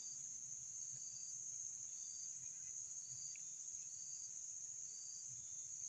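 Insects calling: a steady high trill, with a faint short chirp repeating about twice a second.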